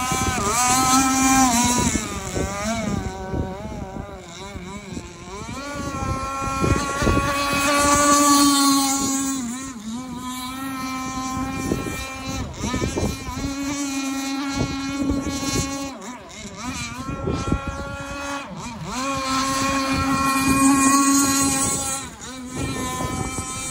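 RC speedboat's motor running at high speed. Its pitch rises and falls with the throttle, and it swells louder and fades several times as the boat makes its runs.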